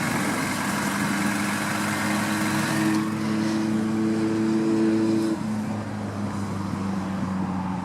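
Car engine idling steadily, with road traffic in the background; one of its steady tones drops away about five seconds in.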